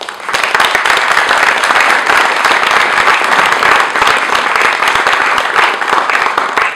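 Audience applauding, many hands clapping together; it begins suddenly and dies away near the end.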